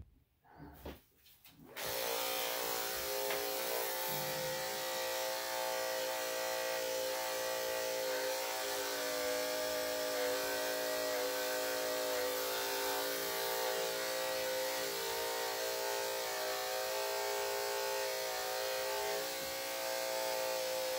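Corded electric dog clippers with a #3/4 blade switched on about two seconds in, then running with a steady hum as they are worked through a dog's coat.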